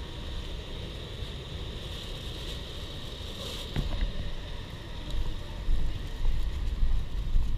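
Wind buffeting the microphone over a steady outdoor traffic hum, with a steady high-pitched buzz above it. The wind rumble grows stronger and gustier about five seconds in.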